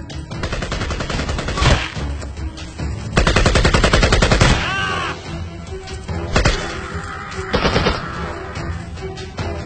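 Rapid automatic-gunfire sound effects dubbed over background music. The loudest and longest burst comes a little before the middle, followed later by a single sharp shot and a shorter burst.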